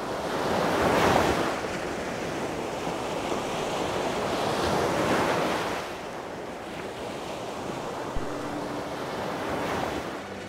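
Sea surf on a sandy beach: a steady rush of breaking waves that swells three times, with wind across the microphone.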